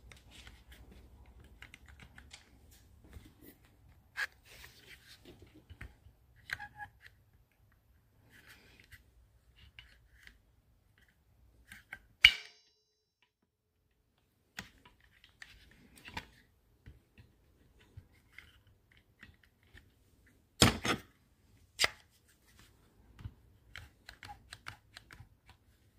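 Scattered light clicks and metal knocks from handling brake shoes, return springs and a homemade brake shoe expander tool on a Girling rear drum brake assembly. One sharp click near the middle is the loudest, and two more firm clicks come later on.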